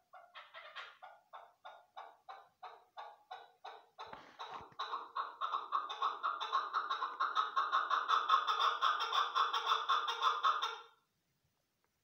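Chukar partridge calling: a series of clucking notes about three a second, then from about four seconds a much faster, louder run of notes that stops abruptly about a second before the end.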